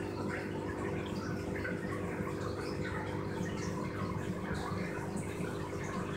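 Aquarium water circulation: a steady trickling and bubbling of filter water over a constant low pump hum.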